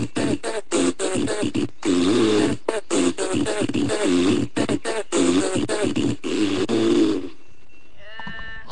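Rhythmic, pitched mouth-made fart noises in a quick, choppy beat that stop about seven seconds in, followed near the end by a short, quieter buzzy call.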